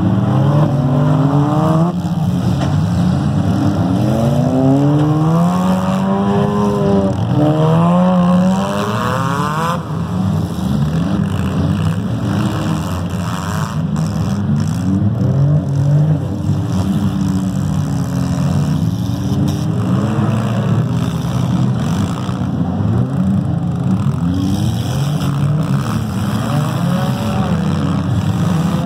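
Several demolition derby cars' engines revving and running at once, overlapping, their pitch rising and falling with the throttle as they drive about the arena.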